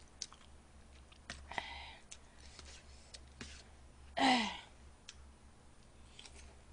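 Scattered light clicks of eating utensils against disposable plates. About four seconds in comes a woman's short sigh that falls in pitch, the loudest sound here.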